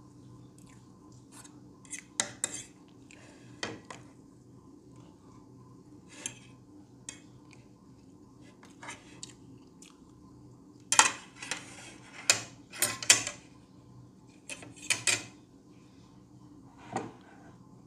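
Two metal forks clinking and scraping against a plate while cutting and picking up pancake: scattered sharp clinks, with a louder run of them about eleven to thirteen seconds in.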